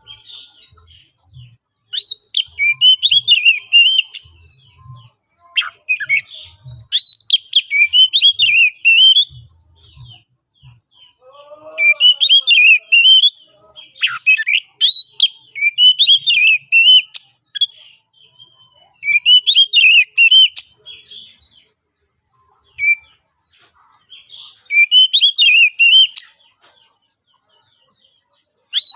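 Oriental magpie-robin (kacer) singing in a loud, aggressive, fighting mood. It gives rapid, varied whistled and chattering phrases in repeated bursts of a few seconds each, with short pauses between them.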